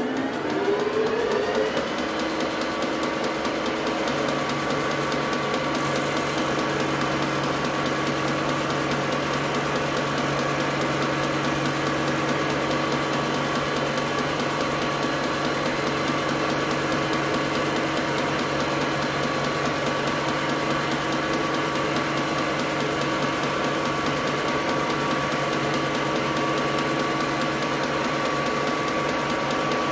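Milling machine spindle speeding up with a rising whine over the first two seconds, then running at a steady pitch as an end mill cuts into a metal part.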